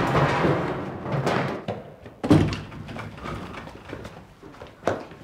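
Hurried footsteps on stairs, then a door banging open with a sharp thud about two seconds in, and another thump near the end.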